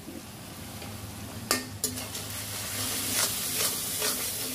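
Slotted metal spatula stirring and scraping in a karahi as mixed spice powder fries in oil with onions and ginger-garlic paste. Two sharp clinks of the spatula on the pan about a second and a half in, then a sizzle that grows louder with repeated scraping strokes.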